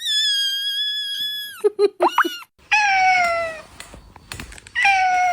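Kittens meowing: a long high-pitched cry, a few short chirping squeaks about two seconds in, then two lower, drawn-out meows.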